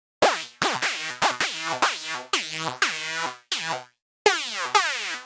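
High-pitched synth lead from the Vanguard software synthesizer playing a rhythmic line of short, clipped notes. Each note opens with a fast downward pitch dive from the pitch envelope. The last few notes, after a brief gap, slide down longer.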